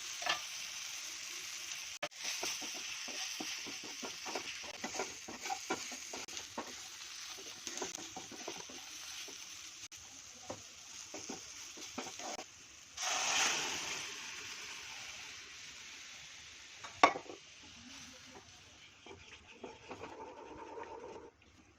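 Food sizzling as it fries in a pan, with a spoon stirring and scraping against the pan. About 13 seconds in the sizzle briefly grows louder. Near 17 seconds a spoon knocks sharply against the pan once, and after that the sizzle grows quieter.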